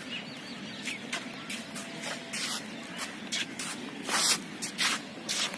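Footsteps scuffing and scraping along a gritty paved path at walking pace, an irregular run of short gritty steps.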